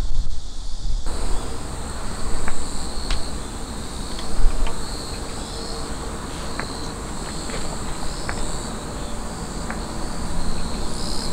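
Insects chirring in a steady, pulsing high-pitched chorus, starting about a second in, over a low rumble of wind on the microphone that swells now and then, with a few faint clicks.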